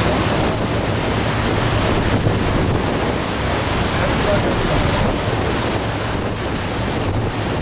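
Water rushing in a boat's churning propeller wake and wind buffeting the microphone, over the low steady hum of the boat's engine.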